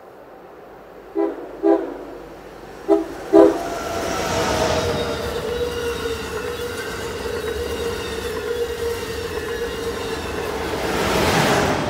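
Amtrak Acela Express trainset sounding its horn in two pairs of short toots, then passing at speed: a loud rush of wheels on rail with a steady tone underneath, swelling near the end as the rear power car goes by.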